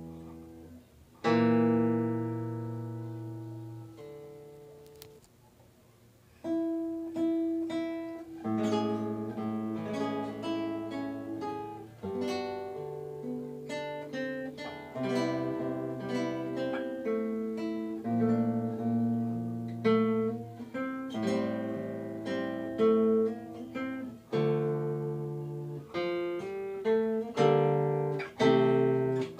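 Background music on acoustic guitar. A chord is struck about a second in and rings out, fading almost to silence. Picked notes then follow one another steadily through the rest.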